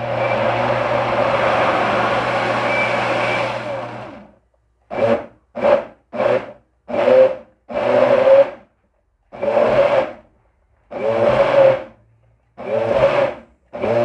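A Britânia BLQ1350 Turbo Inox 1200 W blender runs continuously for about four seconds, winds down, then is pulsed in about eight short bursts. It is working a thick carrot-cake batter with the flour already added, a heavy load that not all blenders can handle.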